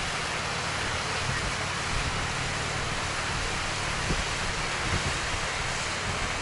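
Long, narrow mountain waterfall pouring down, a steady rush of falling water.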